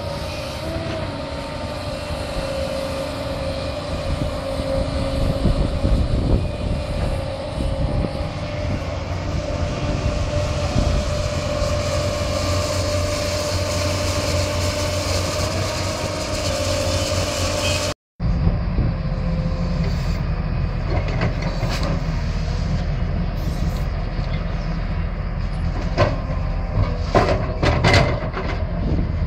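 Crawler excavator diesel engines running steadily under digging load, first a Hyundai with a steady high tone over the engine hum. After a sudden cut, a Lonking excavator runs, with a cluster of sharp knocks near the end.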